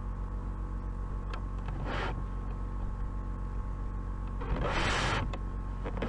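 Steady electrical mains hum under a pause in the narration, with a short hissy burst about two seconds in, a longer, louder one near the end, and a faint click just before the end.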